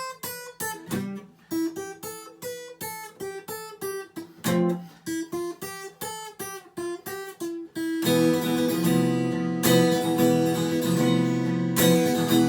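Acoustic guitar playing an instrumental passage without vocals: separately picked notes in a steady rhythm, then about eight seconds in a fuller, louder strummed sound.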